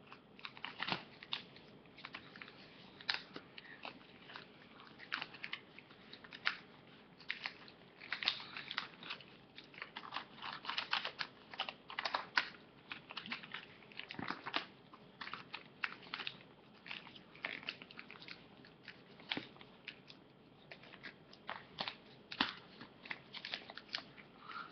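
Paper airplane being folded and creased by hand: irregular paper crinkling and rustling with short crackles.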